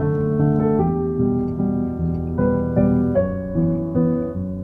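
Background piano music, a gentle melody of sustained notes over a steady chord pattern.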